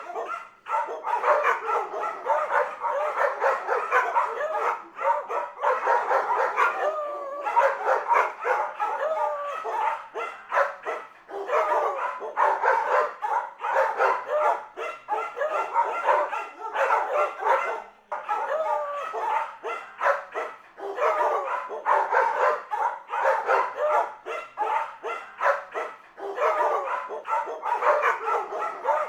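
Rapid, almost unbroken dog barking and yipping, with short bark after short bark following closely.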